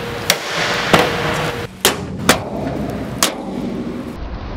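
Five sharp knocks, spaced unevenly over about three seconds, over a steady hiss and a faint hum.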